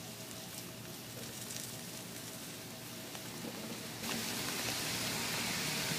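Food sizzling on a charcoal kettle grill as salmon fillets cook on the grate beside a foil tray of fries: a steady hiss that grows louder about four seconds in.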